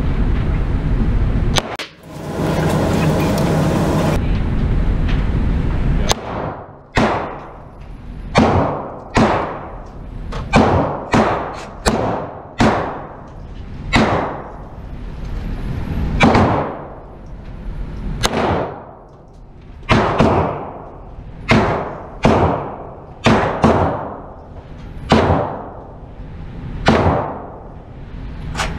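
Electric target carrier running along its track for about six seconds. Then come gunshots from other lanes of an indoor range, about twenty of them at irregular intervals of roughly one to two seconds, each a sharp crack with a long echoing tail off the concrete.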